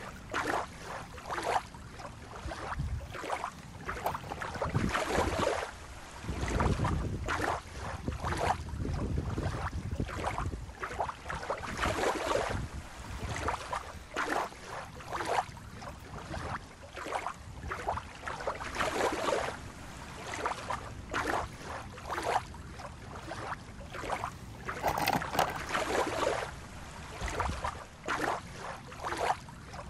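Small waves lapping at the water's edge in irregular surges, with wind on the microphone that rumbles most heavily about six to eight seconds in.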